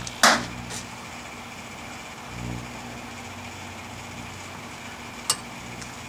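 Microwave oven running with a steady hum while a small portable TV set cooks inside it, electrical arcing in the set giving sharp snaps: a loud one just after the start, another about five seconds in, and a few fainter ticks.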